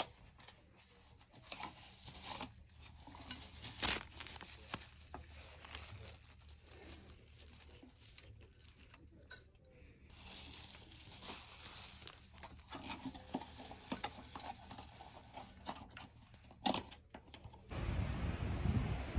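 Hands handling a towel and a water bottle with paper tags: soft rustling and crinkling, with two sharp taps, one about four seconds in and one near the end. About a second before the end, a steady low rumble of outdoor noise takes over.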